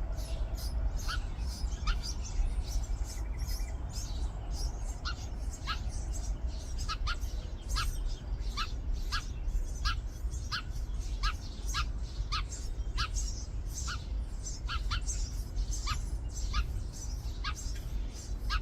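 House sparrow nestlings chirping in the nest: a quick, busy string of short calls, each sliding down in pitch, several a second, over a steady low rumble.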